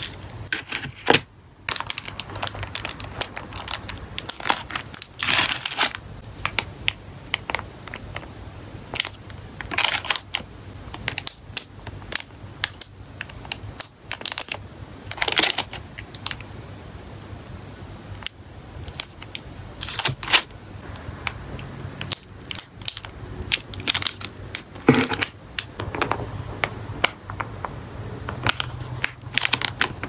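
Hands handling packing materials: crinkling plastic and foil bags and a bubble mailer being laid into a cardboard box, with many small taps and rustles and a few longer crinkles.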